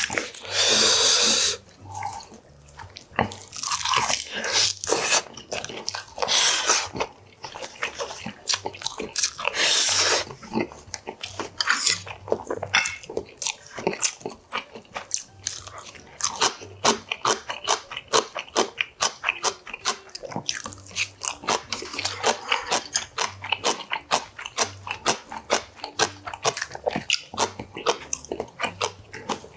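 Close-miked eating sounds: crunchy bites and chewing. There are a few longer rushes of noise in the first ten seconds, then rapid small crunches several times a second from about eleven seconds in.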